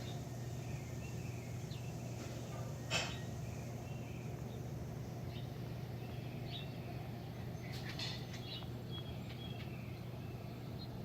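Birds chirping in short calls on and off over a steady low hum, with a sharp click about three seconds in and another near eight seconds.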